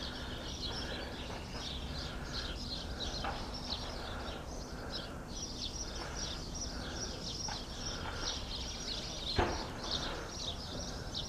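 Small birds chirping continuously: many short high calls, with a softer call repeating at an even pace, over a steady outdoor background. A single sharp knock sounds about nine seconds in.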